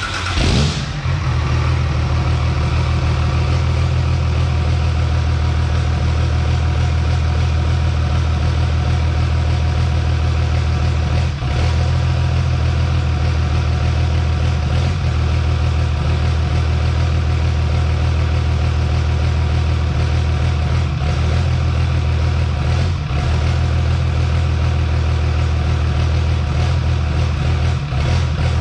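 A Cummins inline-six diesel drag truck engine catches right at the start and settles into a steady idle. It is running on a stock tune set up for its dual injection pumps with post injection turned off, made to idle correctly after running rough.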